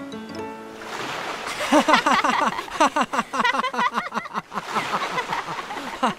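A few plucked notes of background music, then a man and a small boy laughing over the rush of splashing sea water.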